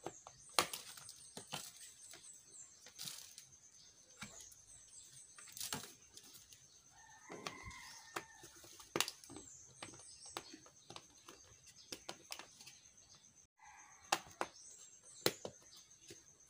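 Hard plastic clicking and knocking as a black plastic hand-held welding face shield is handled and its handle is pressed into place. A chicken calls briefly in the background around the middle.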